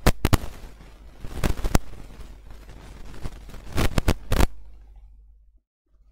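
Computer mouse clicking: several sharp clicks, some in quick pairs, over a low steady hum that cuts off abruptly near the end.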